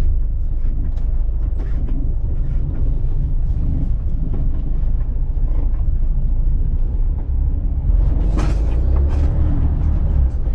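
Loaded truck's diesel engine running in a steady low rumble as it moves onto the weighbridge, with some creaking and rattling. About eight and a half seconds in there is a short hiss, and the low rumble gets louder.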